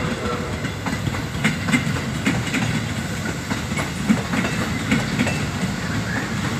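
A KRL electric commuter train running past, with a steady low rumble and repeated knocks from its wheels on the rails.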